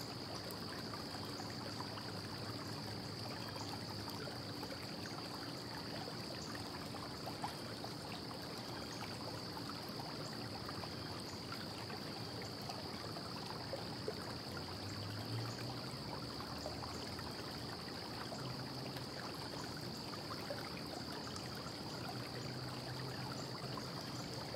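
Steady low hiss with a thin, steady high-pitched whine and a faint hum underneath: background room tone, with a couple of faint ticks.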